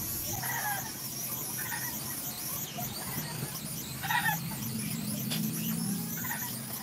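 Small portable electric shaver running with a low steady buzz as it is worked over armpit hair. A few short, high squeaks come through over it.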